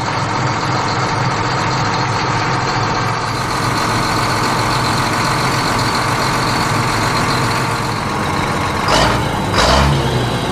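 Tractor engine idling steadily, with two brief hissing bursts near the end.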